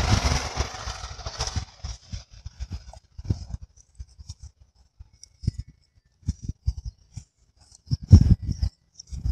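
Scissors cutting a thin plastic bottle along a scored line: a series of short crisp snips with plastic rustling. There is a noisy rustle in the first couple of seconds and a few dull low thumps near the end.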